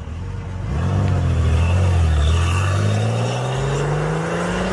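Porsche 911 flat-six engine pulling away under throttle. The engine note rises about a second in, sags briefly, then climbs steadily as the car accelerates off.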